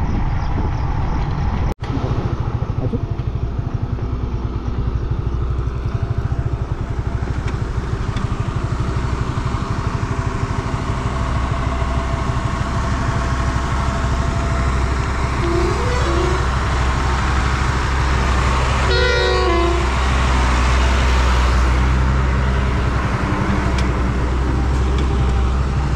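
Yamaha MT-15 motorcycle's single-cylinder engine running steadily under way. A vehicle horn sounds for about a second, a little over two-thirds of the way in, with a shorter toot some three seconds before it.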